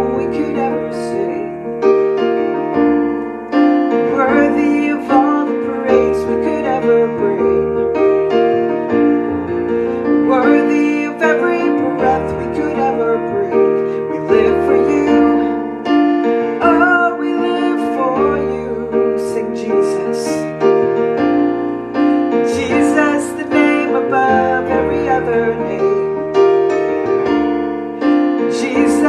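Roland digital piano playing a slow worship song in sustained, flowing chords.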